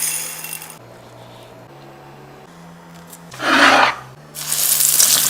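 A short rubbing, rasping noise, then about four seconds in a loud, steady crackling sizzle begins as chicken goes into hot frying oil.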